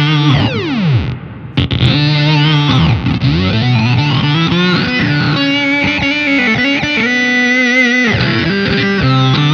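Electric guitar chords played through an EarthQuaker Devices Data Corrupter PLL synth pedal on its octave-unison setting. The synth tones swoop and warble in pitch as the pedal's monophonic oscillator struggles to track the several notes of each chord. The sound briefly dips out about a second in.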